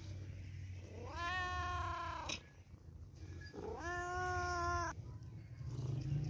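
A cat meowing twice: two long, drawn-out meows, each just over a second, the first starting about a second in and the second a little over a second after the first ends.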